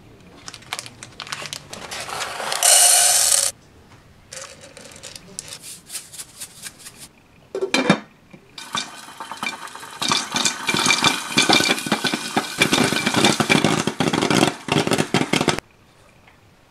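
Dry popcorn kernels rattling against a stainless steel pot as they are poured in and spread by hand, with a loud clunk about halfway through. Then a long dense run of sharp pops and clicks from the lidded pot as the corn pops.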